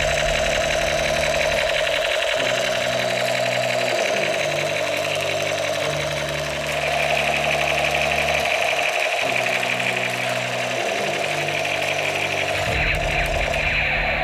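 A steady, rapid buzzing rattle like a small motor, heard over background music whose low bass notes change every second or two.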